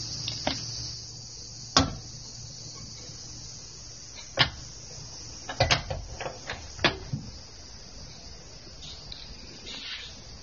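Metal door handle and latch clicking as a front door is eased shut: a single click near two seconds, another at about four and a half, then a quick run of clicks around six to seven seconds. Insects trill steadily and high in the background.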